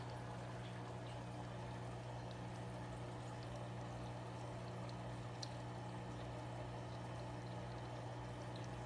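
Aquarium filter running: a steady trickle of moving water over a low, even hum.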